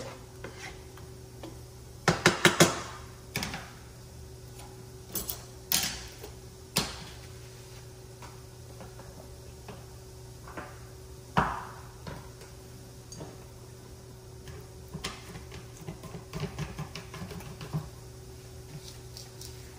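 Kitchen clatter: scattered knocks and clicks of a spatula, frying pan and seasoning bottles being handled, with a cluster about two seconds in and a sharp ringing knock near the middle. A steady low hum runs underneath.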